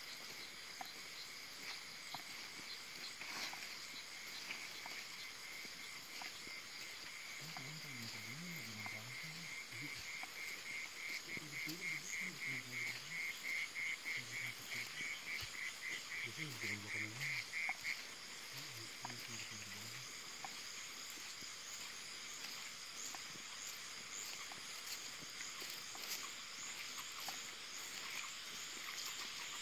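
Night chorus of frogs and insects. Steady insect trilling runs throughout. About a quarter of the way in, a frog starts a rapidly pulsed croaking call that grows louder for about ten seconds and then stops.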